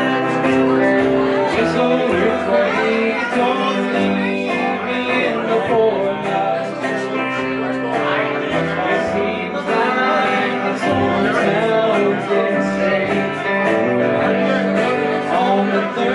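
Live country band playing, with strummed acoustic guitar and upright bass.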